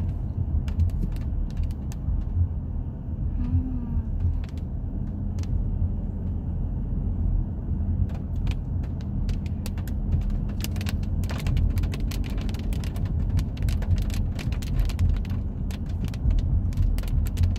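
A steady low rumble with many scattered sharp clicks and crackles. The clicks come thickest in the second half.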